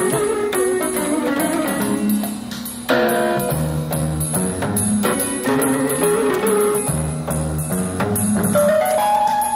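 Electronic keyboard played live: chords and melody lines over a steady drum beat with bass notes, with a short drop just before three seconds in before the full sound comes back in.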